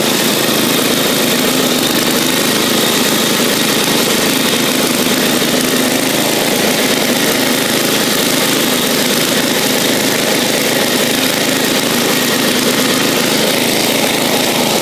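Bolens garden tractor's engine running steadily while the tractor drives along, an even, unchanging drone.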